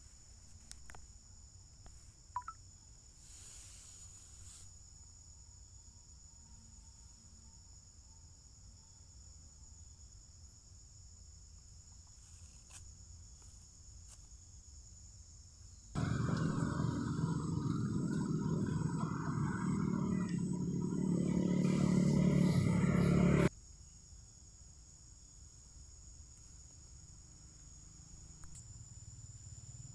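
Steady high-pitched drone of insects. About halfway through, a loud rushing, rumbling noise starts abruptly and cuts off about seven seconds later.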